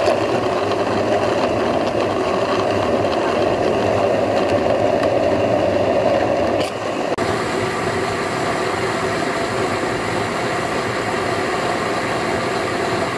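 Electric countertop blender running steadily, its blades chopping apple chunks and corn kernels in water into a pulp. About seven seconds in the sound dips for a moment and settles slightly lower.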